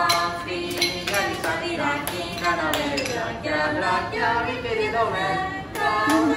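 Ice cream shop staff singing a cheerful song together without instruments, with sharp hits keeping time through it.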